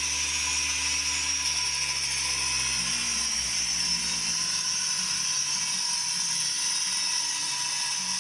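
Homemade pendulum circular saw driven by a washing-machine motor, running steadily with the blade spinning; its low tones shift about three seconds in.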